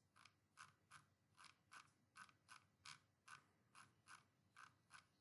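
Computer mouse scroll wheel ticking faintly through its notches in an even run of about three clicks a second, as a document is scrolled through.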